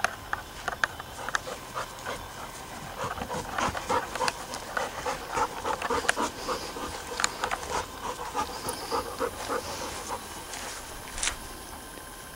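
A young Alaskan Malamute panting close by, in quick, uneven breaths that are loudest in the middle stretch, with scattered sharp clicks mixed in.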